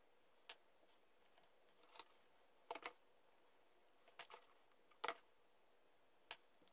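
Light clicks and taps of small plywood wheels and wooden dowel parts being handled and fitted together, about half a dozen scattered through an otherwise near-silent room.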